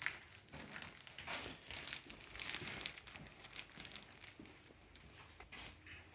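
Faint rustling and crinkling with scattered light clicks and knocks.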